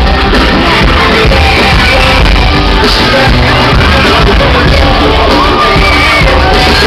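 Pop song with singing played loud over a hall's PA at a sound check, with a crowd of fans shouting along. Toward the end, high-pitched screams rise over the music.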